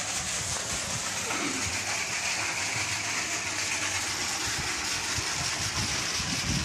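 Water pouring from a filler pipe into a swimming pool as it fills, a steady splashing.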